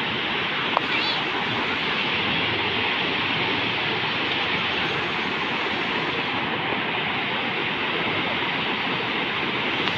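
River rapids rushing over rocks: a steady, even roar of fast water, with a single faint tap about a second in.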